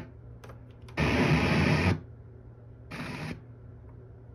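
Teac SR-L100 clock radio's speaker giving bursts of FM static as the radio is tuned between stations: a loud burst of about a second, then a shorter, quieter one about three seconds in, over a low steady hum.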